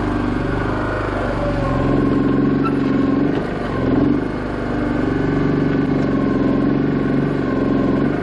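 Komatsu PC01 micro excavator's small engine running, its pitch dipping briefly a few times.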